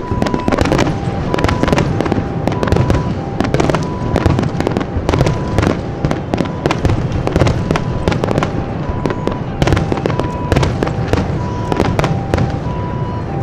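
A rapid barrage of firework shells bursting, with many bangs overlapping one another. Through it runs a two-tone hi-lo siren, alternating high and low notes about twice a second.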